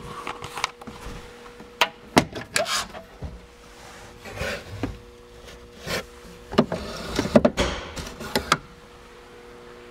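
A string of clicks, knocks and rubbing as the glove box's push-button latch is pressed and its door is opened and handled.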